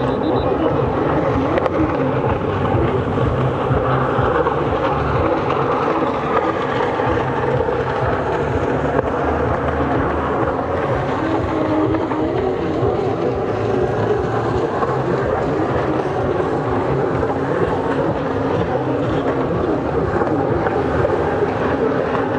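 Racing jet skis' engines running together at speed, a steady, loud mix of engine noise with a wavering pitch.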